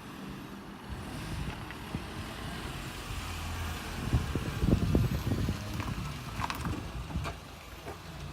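Car engine running at low speed while the car is manoeuvred into a parking space, with the rumble swelling about four to five seconds in and a couple of sharp clicks near the end.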